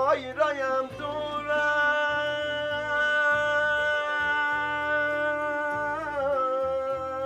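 Live Persian folk music: a man sings one long held note that wavers in ornaments near the end, over a plucked long-necked lute.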